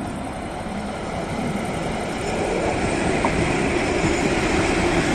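Two-section VL80T electric locomotive hauling a container train, the running noise of the locomotive and its wheels on the rails growing steadily louder as it approaches and draws level.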